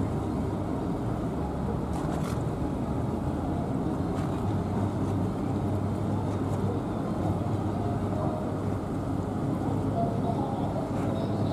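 Steady low rumble of ship engines: a harbour tug pushing against the bow of the cruise ship Asuka II as she comes into her berth.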